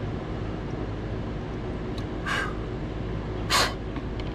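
Two short breathy puffs of air from a person, like a snort or a sharp exhale, about a second apart, the second one louder, over a steady low hum.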